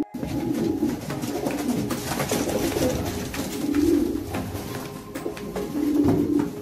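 Racing pigeons cooing in wooden basket crates, a low warbling murmur that swells and fades. Scattered knocks and clatter come from the wooden baskets being handled and carried.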